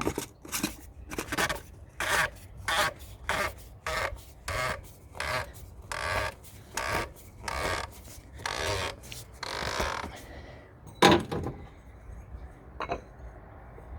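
BMW N55 oil filter housing cap being screwed back into its housing by hand: a rhythmic scraping with each turn, about one and a half a second, then one louder scrape about eleven seconds in and a few light clicks near the end.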